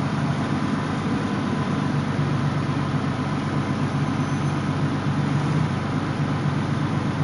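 Steady low engine drone of a heavy-haul truck pulling an oversize trailer load at slow speed, with rolling road noise.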